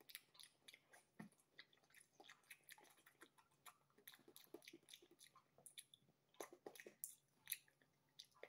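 A person chewing a piece of gummy agar agar jelly: faint wet chewing with many small mouth clicks and smacks.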